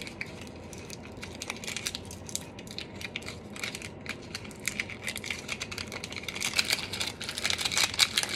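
Parchment paper crinkling as it is folded around a piece of caramel and its ends twisted. The crackling grows busier and louder in the last few seconds.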